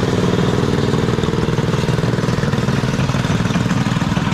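Coleman CT200EX minibike's small single-cylinder engine running steadily through its new aftermarket muffler as the bike rides off.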